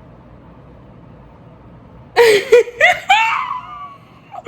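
A young woman squealing with excitement: a few high-pitched wordless cries with sliding pitch, starting about two seconds in and lasting under two seconds.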